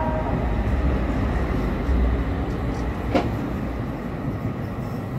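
Vintage tram passing close by on street rails: a steady low rumble of wheels and running gear, with one sharp clack about three seconds in.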